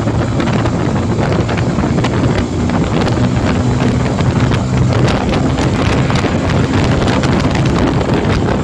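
Motorcycle engine running on the move, a steady low engine note under heavy wind buffeting on the microphone.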